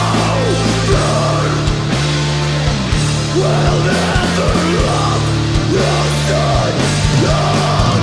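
Loud heavy metal band music with distorted guitars, a steady bass line and drums, and a melody line that bends up and down in pitch.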